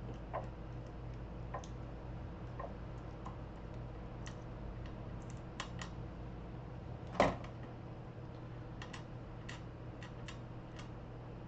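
Scattered light clicks and taps from small hand tools and tape being handled at a workbench, with one louder click about seven seconds in, over a steady low hum.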